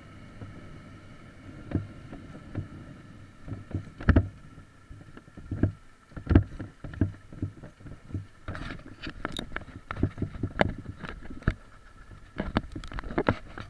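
Dirt bike ridden slowly over a loose, rocky trail: a low engine hum under frequent clacks and knocks as the wheels and chassis jolt over stones, growing busier in the second half.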